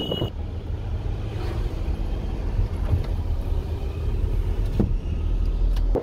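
Car driving along a road, heard from inside the cabin: a steady low rumble of engine and road noise.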